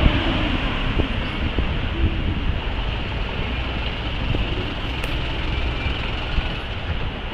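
Street traffic noise, a steady rumble and hiss, as a small box delivery truck drives past.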